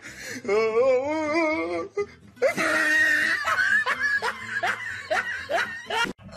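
A wavering, held voice-like sound, then people laughing hard in quick repeated bursts.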